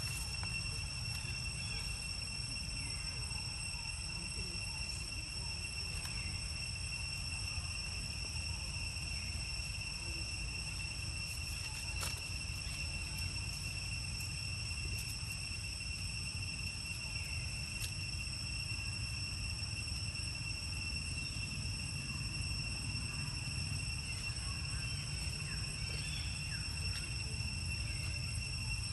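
Steady, unbroken high-pitched insect drone, one whine with overtones, over a constant low rumble, with a few faint chirps and light clicks.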